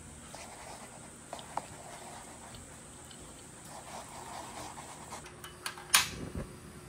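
Wooden chopsticks stirring instant noodles in a paper cup, with faint soft rustling and small clicks. About six seconds in comes a single sharp click, the loudest sound, as a cast-iron griddle on a portable gas stove is handled.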